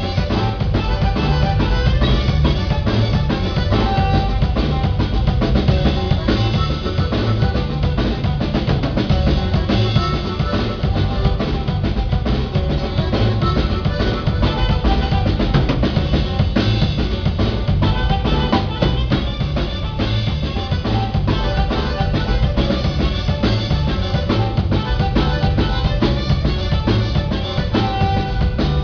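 A live band playing through its sound check, with a full drum kit to the fore: bass drum, snare and rimshots keeping a steady beat under sustained pitched instruments.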